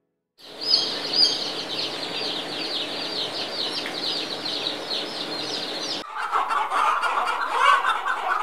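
A crowd of newly hatched Kadaknath chicks cheeping shrilly and constantly. About six seconds in, the sound cuts to adult Kadaknath chickens clucking, lower in pitch.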